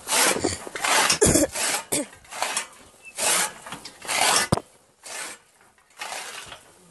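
A phone's microphone rubbing and scraping against clothing and a hand while it is carried: a run of irregular rasping rubs that die away after about five seconds.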